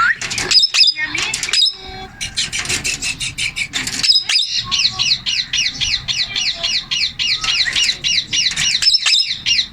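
Indian ringneck parakeet calling: a few short, shrill squawks, then a long, fast run of repeated short chattering notes, about six a second.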